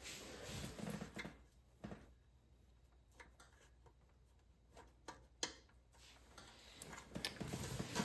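Faint, scattered clicks and light knocks of hand tools and small-engine parts being handled during an engine teardown, with a soft rustle near the start and again near the end.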